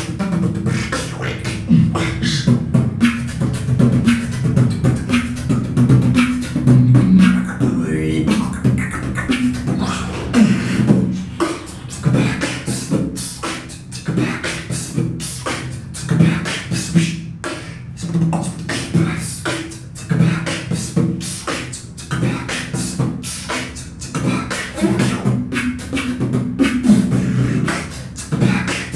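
Two beatboxers performing a beatbox duet: fast rhythmic mouth-made drum beats over a pitched vocal bass line.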